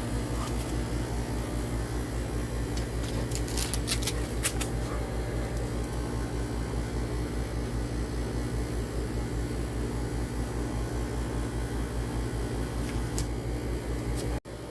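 Steady low mechanical hum, as from a fan or motor unit, with a few short clicks about four seconds in and one more near the end.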